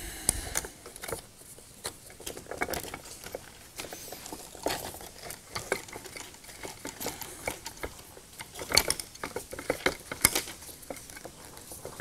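Light, irregular clicks, taps and scrapes of a photocell being twisted by hand into the threaded side opening of an LED light fixture's housing, with a few louder knocks near the end.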